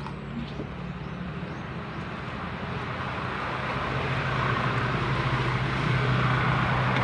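A motor vehicle's engine running steadily with a low hum, growing gradually louder, as if approaching.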